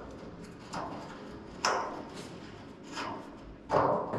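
A handful of short knocks and scrapes as cockpit drain fittings are handled, the loudest near the end.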